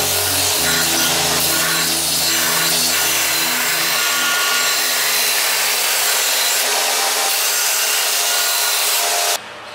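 Belt grinder running while a small metal part is ground against the moving belt, a steady rasping hiss that stops abruptly near the end.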